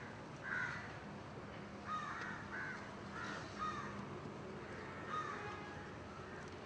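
Crows cawing: a loose series of short, harsh caws, about eight over several seconds, over a steady background hiss.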